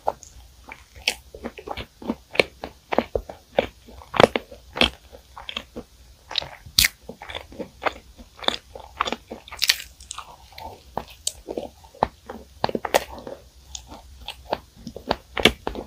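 Close-miked crunching and chewing of a flaky, crisp pastry: dense, irregular crackles of the crust, several a second.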